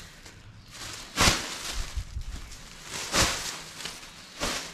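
Thin plastic bag sheeting crinkling as it is handled, in three short rustles: about a second in, around three seconds in, and near the end.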